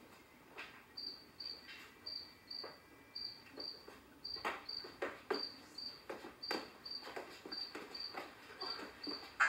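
Stage-performance audio played back from a TV: a short high chirp repeating about two to three times a second, joined from about four seconds in by rhythmic knocks or stomps that grow stronger as dancers come on.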